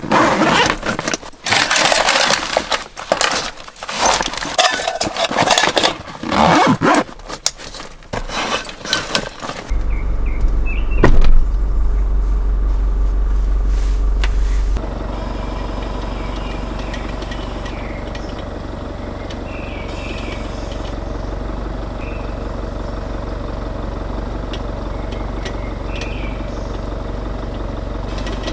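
Rustling and clattering of bags and gear being handled and packed for about ten seconds, then the Land Rover Defender 110's engine idling with a steady low rumble. A single sharp clunk comes soon after the idle begins, and faint bird chirps sound over the idle.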